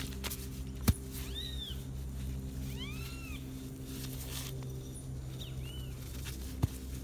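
Several short animal calls, each rising then falling in pitch, spaced a second or two apart, over a steady low hum. Two sharp clicks, about a second in and near the end.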